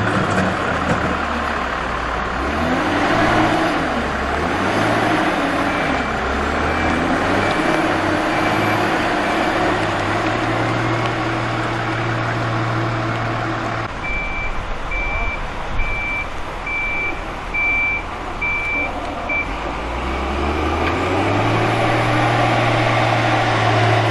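Wheel loader's diesel engine running and revving up and down as it works, with its reversing alarm beeping in an even series, faintly for a few seconds and then louder about halfway through.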